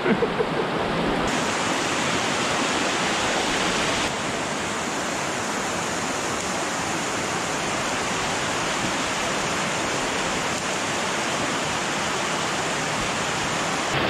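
Steady rush of fast-flowing stream water tumbling over rocks toward a forest waterfall, an even, continuous noise.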